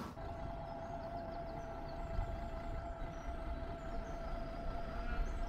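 Distant engine running steadily, a low rumble under a constant high whine.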